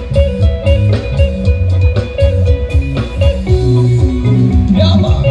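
Band music with a steady drum-kit beat, bass and a held keyboard-like tone, with an electric guitar bending notes in the second half.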